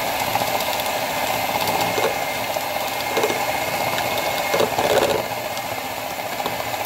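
Moulinex Supermix 150 electric hand mixer running steadily, its beater whipping cocoa powder, sugar and a little hot water in a bowl, with a few brief louder knocks.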